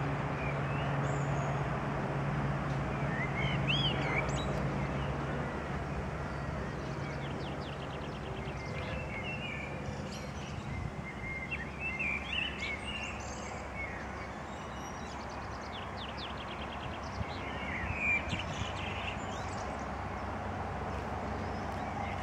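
Single-engine Cessna light plane flying low overhead: a steady piston-engine and propeller drone, strongest in the first few seconds and easing somewhat after. Small birds chirp and sing throughout.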